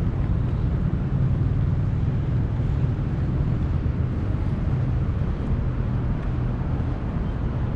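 Steady low rumble of motor traffic on a busy city road, engines running with no single event standing out.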